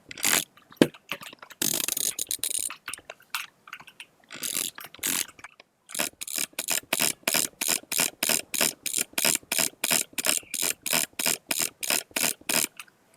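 Sharp mechanical clicking, irregular at first, then a steady run of about three clicks a second through the second half.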